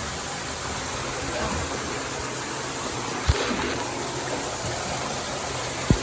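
Steady rush of water flowing through a narrow cave passage, with two short low thumps, about three seconds in and again near the end.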